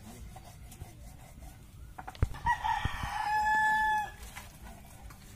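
A rooster crowing once: a rough opening about two and a half seconds in, then a long held note that cuts off suddenly about a second and a half later. A couple of sharp knocks come just before the crow.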